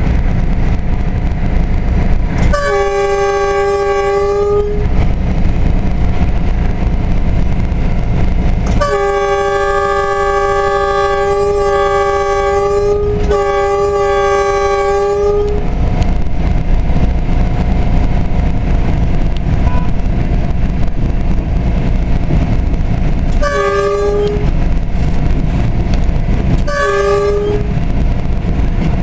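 Diesel locomotive horn sounding five blasts, heard from inside the cab: one about two seconds long, then two long blasts run almost together, then two short toots near the end. Under it, the steady low rumble of the running locomotive and wheels on the track.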